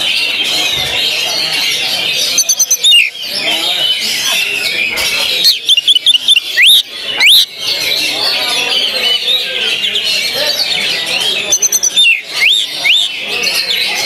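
Oriental magpie-robin singing its contest song: three loud bursts of rapid clipped notes and sharply rising whistles, the "tembakan" (shots) of a kacer, the loudest a little past the middle. Under it runs a dense chorus of other caged songbirds singing.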